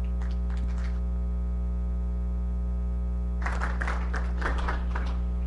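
Steady electrical mains hum from the sound system, a low buzz with a stack of evenly spaced overtones, with a brief spell of muffled noise a little past halfway.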